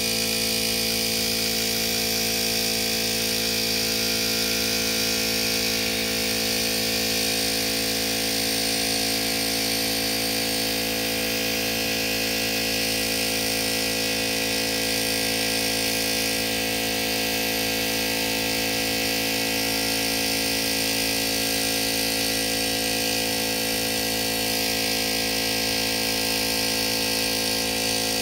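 Air-fed gravity spray gun hissing steadily as it sprays single-stage paint, over a steady many-toned motor hum.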